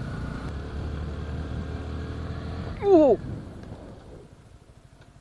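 Yamaha R15 V3's single-cylinder engine running steadily under way, with wind on the helmet mic. About three seconds in comes a loud, short cry falling sharply in pitch as something darts in front of the bike. The engine then drops to a faint, even idle as the bike stops.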